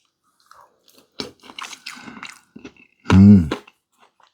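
A person chewing and eating a mouthful of ackee and chicken close to the microphone, with small wet mouth clicks. About three seconds in comes a short, loud hummed "mmm" of approval at the taste.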